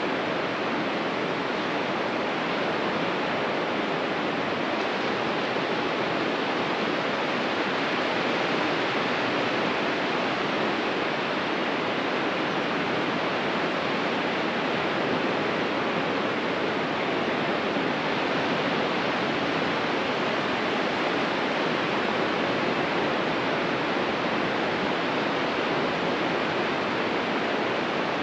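Ocean surf: a steady, even wash of breaking waves with no distinct rise and fall of separate swells.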